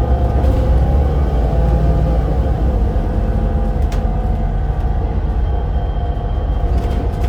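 Volvo B7RLE bus with a ZF EcoLife automatic gearbox running: a steady low rumble with a held engine tone, and a single sharp click about four seconds in.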